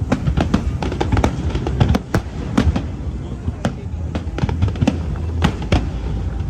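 Aerial fireworks going off: a dense, irregular run of sharp cracks and pops, several a second, over a low rumble of booms.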